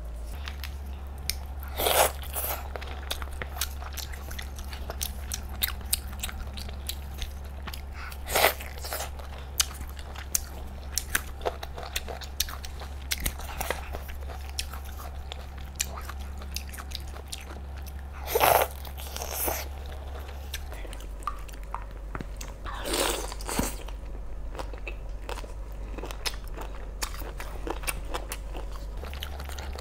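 A person biting into and chewing lobster meat, with small clicks and crackles as shell is pulled away between bites. A few louder bites stand out, spaced several seconds apart, over a steady low hum.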